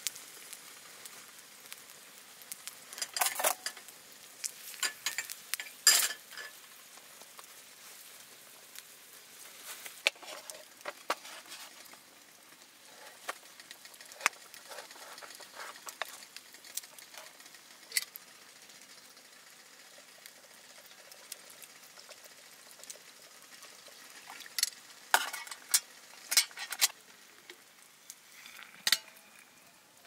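Food sizzling in a pan, stirred with a utensil, with scattered sharp clinks and scrapes. The clicks come in louder clusters about 3 and 6 seconds in and again near the end.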